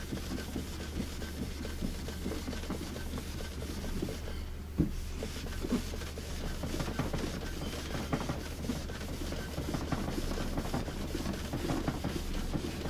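Cloth rubbed hard back and forth over a wooden radio cabinet panel, a continuous irregular scrubbing, with a single knock about five seconds in. A steady low hum runs underneath.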